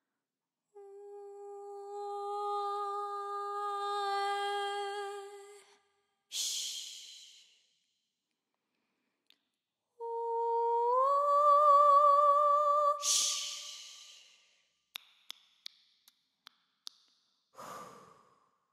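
A woman's voice holding long wordless hummed notes. The first note is steady for about five seconds; the second starts lower and rises a step, then wavers with vibrato. Each note ends in a breathy rush of air, and near the end come about six short sharp clicks and one more brief breath.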